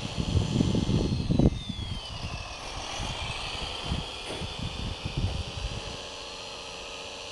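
Scale RC Komatsu WA470-6 wheel loader's motors and gears whining as it drives, the high whine falling in pitch and then rising again. Wind buffets the microphone with low rumbling gusts, loudest in the first second and a half.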